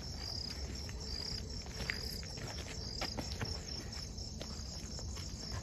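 Crickets chirping in a steady, evenly repeated high chirp, with a few sharp clicks of footsteps on a dirt path through brush.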